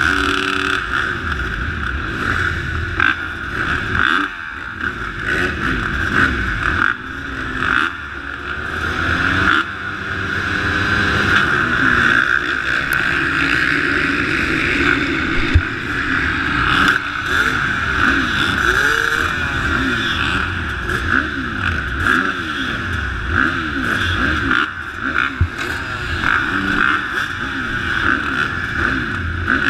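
A row of motocross bikes idling and revving together at the starting gate, throttles blipped up and down in overlapping rising and falling pitches. Among them is a KTM 350 SX-F four-stroke single.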